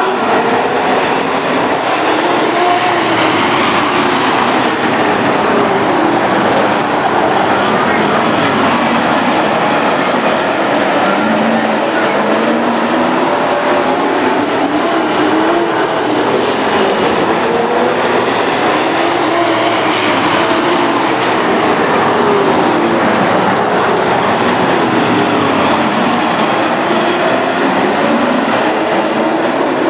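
A field of dirt-track Sportsman stock cars racing around the oval, engines running hard together, their pitch climbing and falling every few seconds as the cars go down the straights and through the turns.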